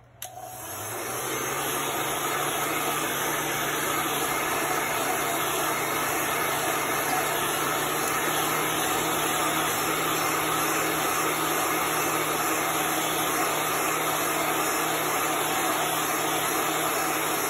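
Handheld heat gun running steadily, its fan whirring up to speed over the first second or so, blowing hot air to dry freshly applied chalk paste.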